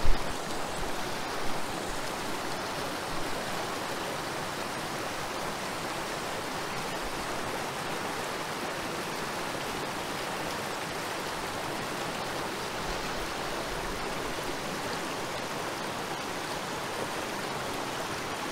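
A fell beck rushing steadily over rocks. A sharp knock right at the start and a couple of fainter knocks in the first few seconds.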